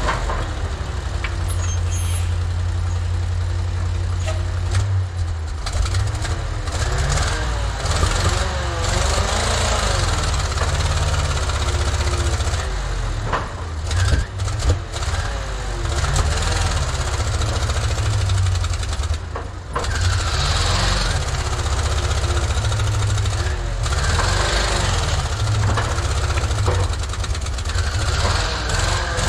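Ford crane truck's carbureted V8 engine running, its revs rising and falling over a steady low rumble.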